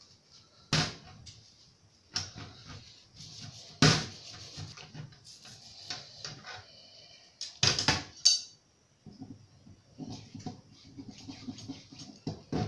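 Black-powder revolver frame scrubbed with a small brush in soapy water in a stainless steel sink: bristles scratching and water sloshing. Sharp clattering knocks of metal come about a second in, near four seconds and a few around eight seconds.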